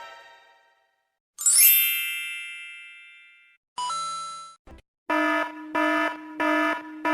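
A run of separate cartoon sound effects: a bright ding that rings out and fades about a second and a half in, a short electronic tone near the middle, then four evenly spaced buzzy alarm-like beeps.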